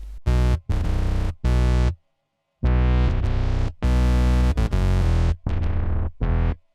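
Electronic background music: synthesizer chords over heavy bass in short chopped phrases, with a sudden break of about half a second around two seconds in.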